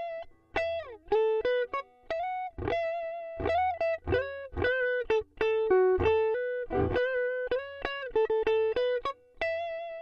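Swing C1 Plus Les Paul-style electric guitar played with a clean tone through its neck humbucker: a single-note melodic line with a few notes bent or slid in pitch, and short pauses between phrases.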